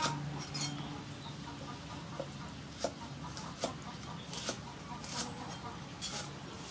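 Cleaver chopping lemongrass stalks on a wooden chopping board: about eight sharp knocks, a little under a second apart.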